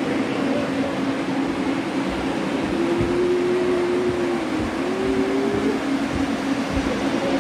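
Model trains running on a layout: a steady hum and rush of motors and wheels, with a whining tone that holds for a second or two midway and then glides a little higher before fading.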